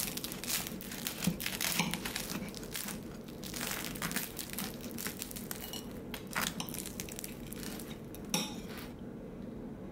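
Crusty bánh mì baguette crackling and crunching as a knife saws through it and the halves are pulled apart, with the knife scraping and clinking on the plate.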